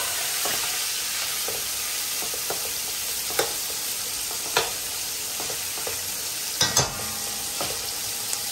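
Cut-up Vienna sausages sizzling in hot oil in a pan, stirred now and then. Several sharp clicks come through the sizzle; the loudest are two close together about seven seconds in.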